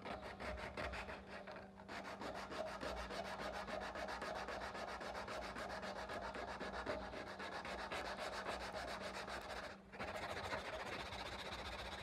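Abrasive paper rubbed by hand in quick back-and-forth strokes along the rusty steel blade of an antique Bowie knife, scouring off the rust. The strokes break off briefly about two seconds in and again near the ten-second mark.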